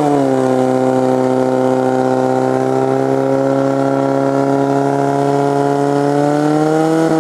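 Portable fire pump's engine running at full throttle, pumping water through the charged hose lines to the nozzles: a loud, steady engine note whose pitch sags a little at the start as the lines take up the load, then holds level.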